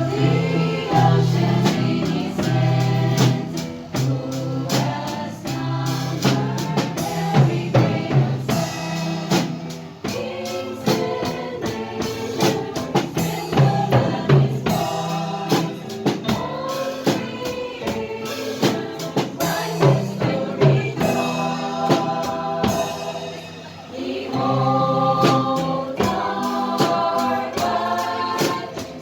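Gospel music: a choir singing over a drum kit, with frequent sharp drum hits.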